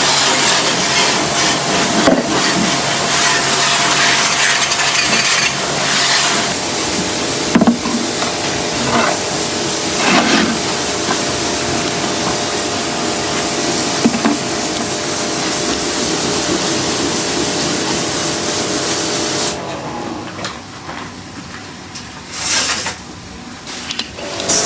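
Pressure washer spraying a steady water jet while its pump motor runs, cleaning an air-conditioner unit. About three-quarters of the way through the spray stops, then two short blasts follow near the end.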